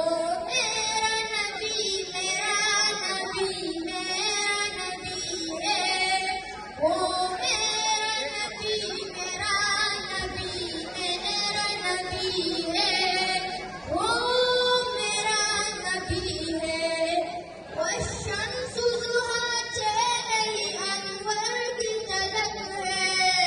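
A boy singing a naat, an Urdu devotional song in praise of the Prophet, into a handheld microphone, with long melodic phrases that glide and hold their pitch.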